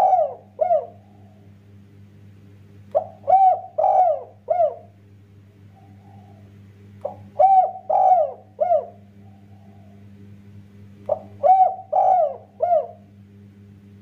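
Spotted dove (tekukur) cooing: a short note and three coos per phrase, with three full phrases about four seconds apart. The end of an earlier phrase is heard at the start.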